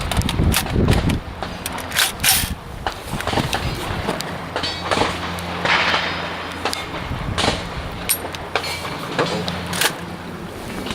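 Scattered sharp clicks and knocks, several a few seconds apart, over a steady low hum, with a low rumble near the start.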